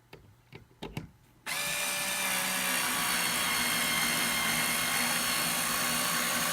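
Cordless electric screwdriver starting up about a second and a half in and running steadily, driving a screw. A few faint clicks come before it starts.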